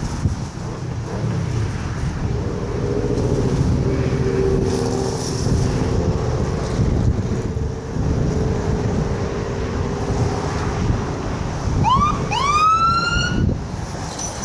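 Wind rumbling on the microphone, with a steady droning tone through the middle. Near the end come two short rising siren whoops, the second one longer.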